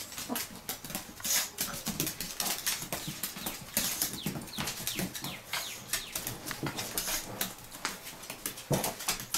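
A ferret and a chihuahua scampering and scuffling on a hardwood floor: rapid, irregular tapping and scrabbling of claws and paws, with a few dull thumps.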